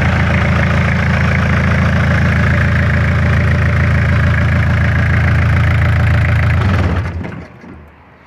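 Nissan TD27 2.7-litre four-cylinder diesel, running bare outside a vehicle, idling steadily with a diesel clatter. About seven seconds in it is shut off and its sound dies away within a second.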